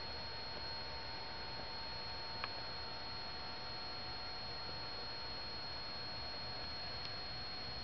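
Quiet room tone: a steady hiss with a faint, steady high whine, and one small click about two and a half seconds in.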